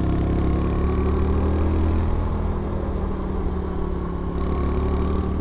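Motor scooter engine running steadily as it is ridden uphill, heard from on the bike.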